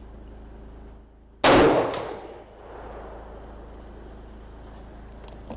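A single shot from a scoped Thompson/Center Contender single-shot pistol about a second and a half in, its report ringing on for about a second before dying away. A generator runs with a steady hum underneath.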